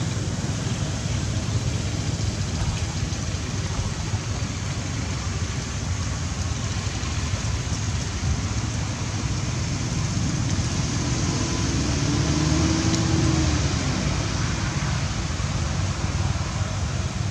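Steady rumble of road traffic. About two-thirds of the way through, a passing vehicle's engine hum rises and then falls as the noise swells slightly.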